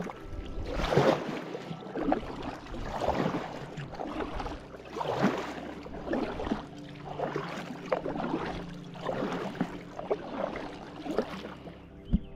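Kayak paddle strokes: the blades dipping and pulling through calm water in a steady rhythm of about one splash a second, with dripping and swirling water between strokes. A short thump sounds near the end.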